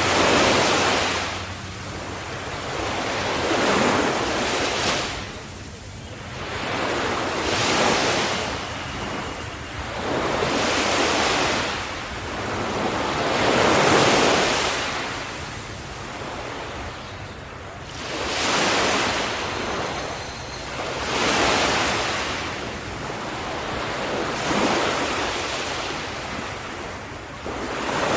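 Calm-sea ocean waves washing onto the shore one after another. Each wave's rush swells and fades every three to four seconds, about eight times here.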